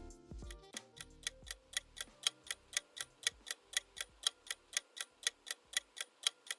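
Clock-ticking countdown sound effect, about four even ticks a second.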